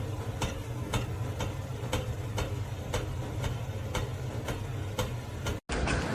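Regular ticking, about two ticks a second, over a steady low hum, cut off by a brief dropout near the end.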